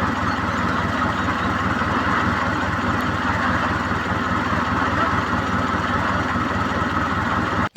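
Tractor engine idling steadily with a fast, even throb. It cuts off abruptly just before the end.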